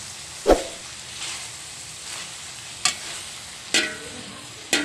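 A spatula stir-frying shredded cabbage and carrots in a stainless steel wok, over a light sizzle, knocking against the pan four times, loudest about half a second in.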